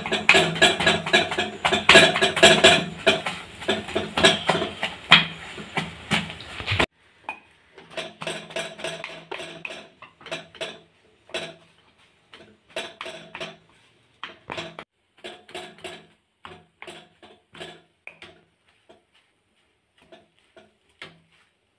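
Steel tumbler rim chopping egg-and-bread kothu mixture against a nonstick pan, a fast run of repeated knocks and scrapes. About seven seconds in, the steady background noise drops away and the knocks turn slower and softer, a few taps a second.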